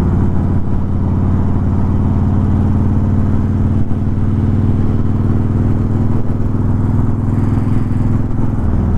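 Motorcycle engine running steadily at cruising speed: a low, even drone with road noise, heard from the rider's seat.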